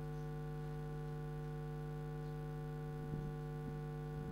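Steady electrical mains hum in the sound system, a low buzz with several evenly spaced overtones, with a few faint clicks about three seconds in.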